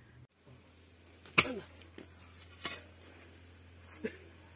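Pickaxe striking hard, stony soil: one sharp blow about a second and a half in, then a few fainter knocks.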